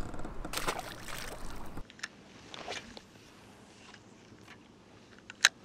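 A small largemouth bass splashing into the water as it is released over the side of the boat, cut off abruptly about two seconds in. Then a quiet stretch with faint clicks from a spinning reel and one sharp click near the end.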